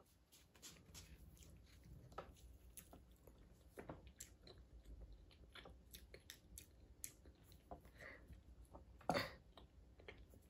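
Faint mouth sounds of a person chewing a bite of breaded chicken: small scattered wet clicks and smacks, with one louder short sound about nine seconds in.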